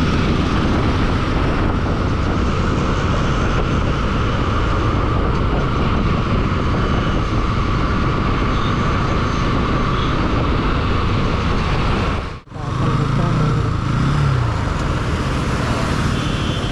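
Steady, loud road traffic noise of vehicle engines and tyres, with a sudden drop-out about twelve seconds in, after which a lower engine hum carries on.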